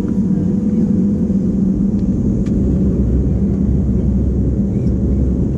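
Steady low rumble of a running vehicle engine, with a constant hum and no change in pace.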